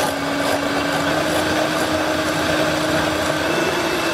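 Electric hand mixer running steadily, its twin wire beaters whisking egg white into a thick foam; a constant motor whine whose pitch creeps slightly higher.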